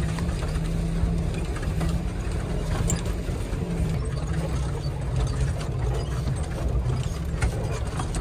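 Four-wheel-drive vehicle's engine running steadily as it drives over a rough, rocky dirt track, with the body and cabin fittings rattling and clattering, heard from inside the cab.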